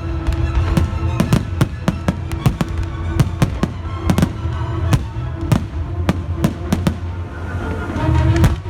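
Fireworks bursting in a dense run of sharp bangs, several a second, over loud music with a steady bass line.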